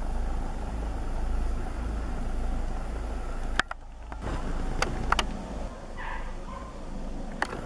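Distant helicopter in flight: a steady low rumble over a noisy haze. Several sharp clicks cut through it, and the sound dips briefly a little after three and a half seconds.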